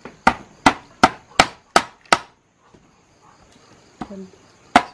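A heavy knife pounding boiled bamboo shoots flat on a plastic cutting board. A run of about six sharp strokes comes at nearly three a second, then there is a pause of about two seconds and one more stroke near the end.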